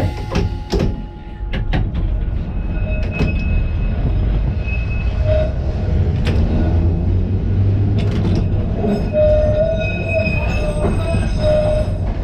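Liverpool tram No.762, a 1930s bogie car, running along the line: a steady low rumble from its motors and wheels on the rails, with scattered clicks. Thin squealing tones from the wheels come and go from about five seconds in, strongest near the end.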